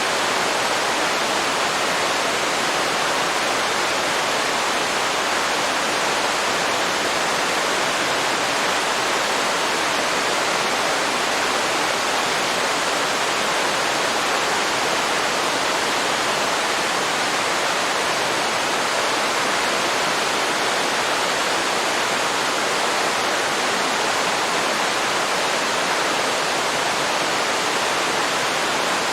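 Waterfall rushing steadily, an even, unbroken hiss of falling water that never changes in level.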